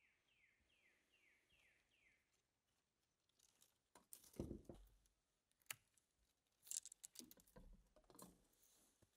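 Faint bird call, a quick run of about seven falling chirps, in the first two seconds. From about four seconds in come rustling, crunches and sharp clicks as a young birch sapling is grabbed and bent down by hand, the loudest crunch about four and a half seconds in.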